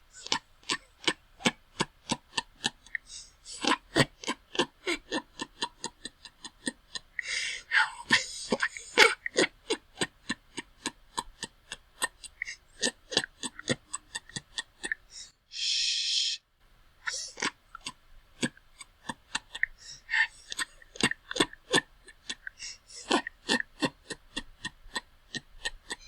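A person laughing quietly: a long run of short, stifled bursts, several a second. It is broken by sharp, breathy in-breaths about seven seconds in and again around fifteen seconds.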